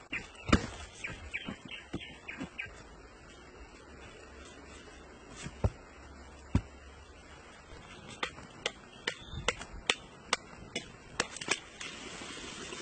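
Hand digging and pounding in hard earth: sharp wooden knocks and taps, a few scattered at first, then a quicker run of about three a second near the end.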